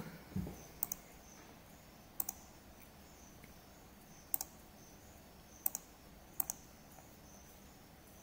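Computer mouse clicking: short sharp clicks, mostly in close pairs, every second or two over faint room hiss.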